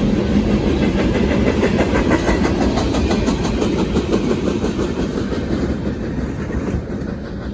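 Freight train cars rolling past on the rails: a steady rumble with the clickety-clack of wheels over rail joints, easing off slightly near the end.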